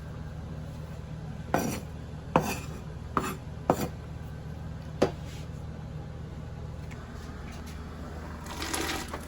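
Kitchen knife knocking on a cutting board while an onion is cut: about five sharp, irregularly spaced knocks, then a short scraping sound near the end, over a steady low hum.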